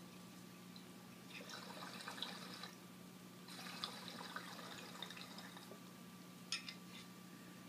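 Water bubbling in a glass bong as smoke is drawn through it, in two pulls of about a second and a half and two seconds, with a crackly texture. A couple of sharp clicks near the end.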